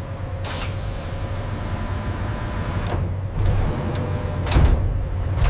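Steady low mechanical rumble with a whirring hum, swelling briefly about four and a half seconds in.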